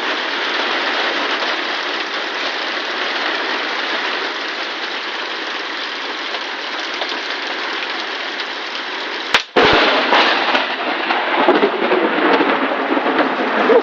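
Heavy rain falling steadily. About nine seconds in, a very close lightning strike: one sharp thunder crack, the sound briefly cutting out, then louder, rougher thunder over the rain.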